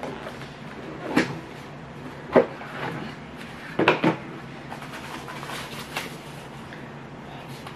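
Rigid cardboard box being opened: a few sharp knocks as the snug lid is worked off and set down on the table, then faint rustling as a protective sheet is lifted out of the box.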